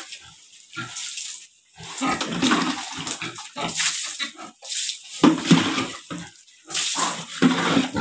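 Pigs grunting in short irregular bursts, with splashes of water from a mug being dipped in a bucket and thrown onto the pigs and the concrete floor.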